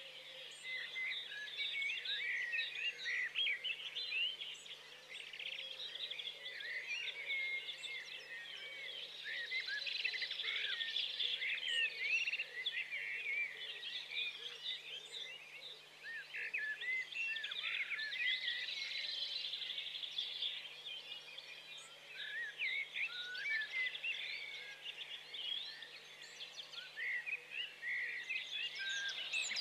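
A dense chorus of small birds chirping, with many quick overlapping calls rising and falling in waves. A steady low hum sits underneath.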